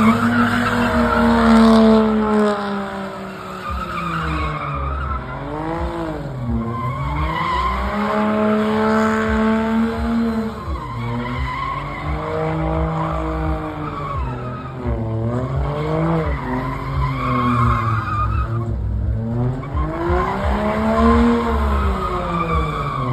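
A car doing donuts, its engine revving up and down in repeated swells every few seconds while its tyres squeal and skid. Loudest at the start.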